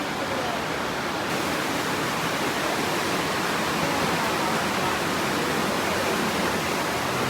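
The River Aare rushing fast through a narrow rock gorge: a steady, even rush of whitewater.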